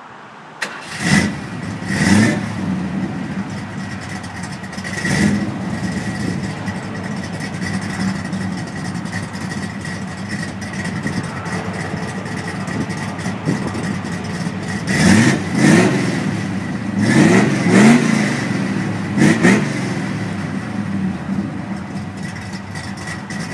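Classic car's engine idling, heard from behind at the exhaust, with repeated throttle blips: two early on about a second apart, one about five seconds in, then a quick run of four or five between about fifteen and twenty seconds.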